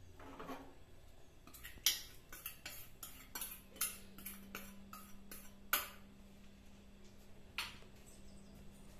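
Steel ladle and small steel tempering pan clinking against a steel pot in a run of sharp metal taps as the hot tempering is poured and scraped into the dal. The taps are loudest at about two, four and six seconds in, with one more near the end.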